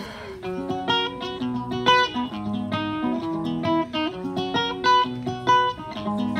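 Acoustic guitar played live, with plucked melody notes over a moving bass line and no singing.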